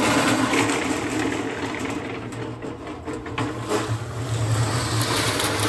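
Small electric cement mixer running, its drum turning on a toothed ring gear and tumbling wet concrete. A steady motor hum sits under the churning, clattering mix.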